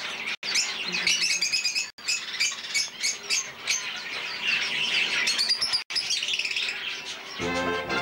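A cage of budgerigars chirping and chattering, a dense stream of quick high calls, broken by three abrupt dropouts in the sound. Music comes in near the end.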